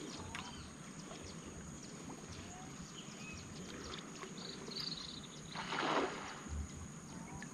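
Scattered short bird chirps over a steady high drone, with a brief swell of splashing water about six seconds in, the loudest sound.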